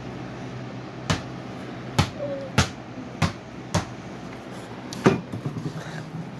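A small basketball being dribbled on a hard floor: about six bounces at uneven intervals.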